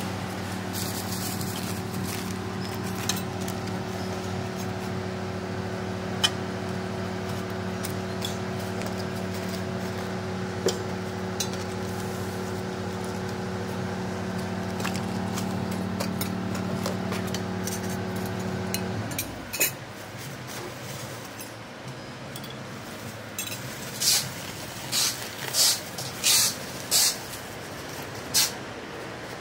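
A steady low hum runs under light clinks of the kit's metal parts being handled, and cuts off suddenly about two-thirds of the way through. Near the end comes a string of short, sharp crinkles from plastic parts bags being handled.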